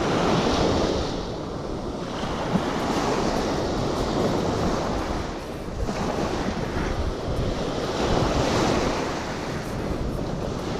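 Sea waves washing onto the shore, the noise swelling and easing every few seconds, with wind buffeting the microphone.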